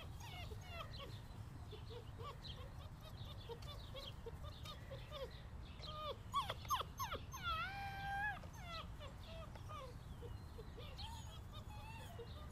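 Seven-week-old German Shorthaired Pointer puppies whining and whimpering in many short, high whines. There are a couple of sharp yips about six and a half seconds in and one longer drawn-out whine around eight seconds.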